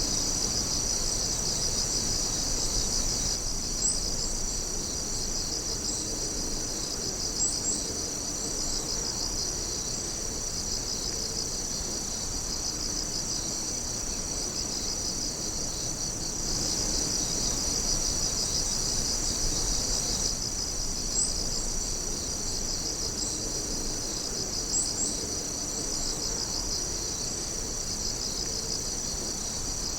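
A night chorus of insects trilling together: a steady, high chirring with a fast pulsing rhythm. A few short, higher chirps stand out now and then.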